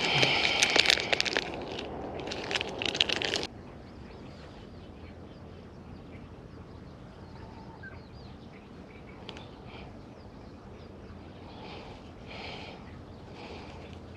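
A plastic soft-bait packet crinkling and crackling loudly as it is handled, stopping suddenly about three and a half seconds in; after that only faint outdoor background.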